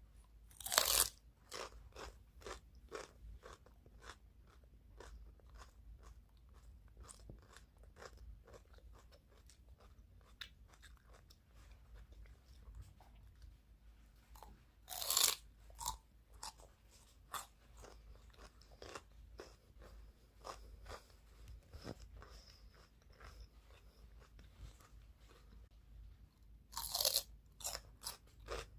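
A person eating close to the microphone: steady crunchy chewing with small wet clicks, broken by three louder bites about a second in, around the middle and near the end.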